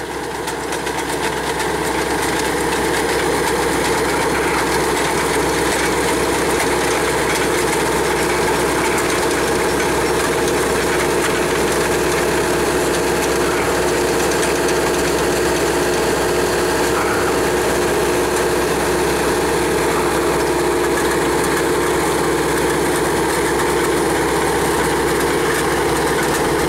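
Truck-mounted rock drill rig running, its engine and hydraulic drive turning the drill steel as it bores slowly into solid rock. A loud, steady mechanical din that builds over the first few seconds and then holds.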